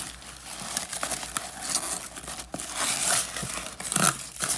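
Shredded kraft-paper packing filler and honeycomb paper wrap rustling and crinkling as hands rummage through a cardboard shipping box, in uneven bursts, louder about three and four seconds in.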